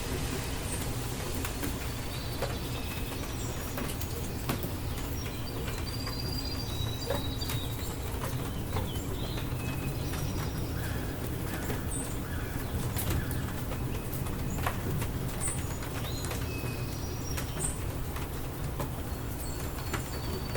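Steady rain falling, with many separate drop ticks over a constant low rumble. Birds chirp briefly and high-pitched now and then through the rain.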